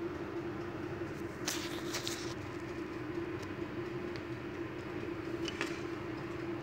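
Steady mechanical hum at one low, even pitch, with a few short sharp clinks about one and a half to two seconds in and again near the end.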